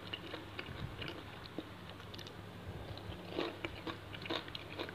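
Close-up chewing and biting of raw shrimp in a chilli fish-sauce dressing: irregular wet, crunchy clicks, thickest about three and a half and four and a half seconds in. A faint steady low hum runs underneath.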